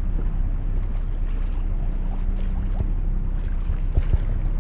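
Wind buffeting the microphone and water rushing past the hull of a sailing yacht under way, a steady low rumble with a few light knocks near the end.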